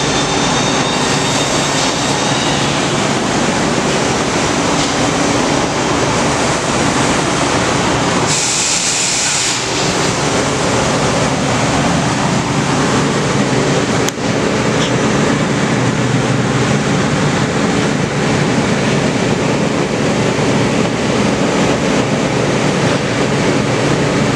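Haas VF-3SS CNC vertical mill running: a loud, steady machine hum with several held tones. A brief high hiss comes about eight seconds in and lasts a couple of seconds, and there is a single sharp click around fourteen seconds.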